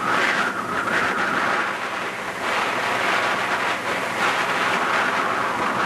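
Small boat's motor running steadily under way, with wind on the microphone and water rushing past the hull.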